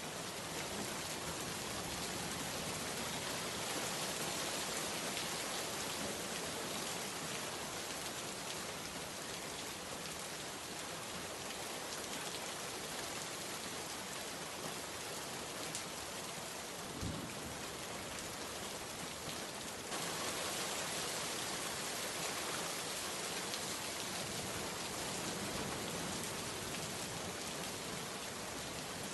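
Steady heavy rain falling, a dense even patter of drops on surfaces, with a brief low thud about 17 seconds in and the hiss turning slightly louder and brighter all at once about 20 seconds in.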